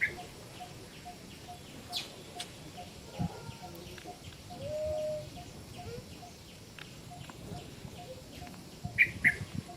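Animal calls: short high-pitched chirps, two in quick succession near the end, and a brief lower coo about halfway through, over a faint regular ticking.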